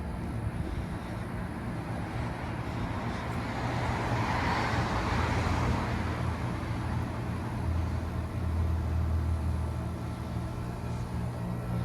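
1991 Bryant Reliant 697A heat pump running during its defrost cycle, with a steady compressor hum. A rushing sound swells and fades about four to six seconds in, and the hum deepens slightly near the end.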